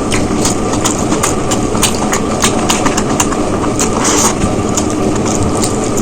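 Close-miked eating sounds: a person chewing biryani, with a quick, irregular run of wet mouth clicks and smacks over a steady low rumble.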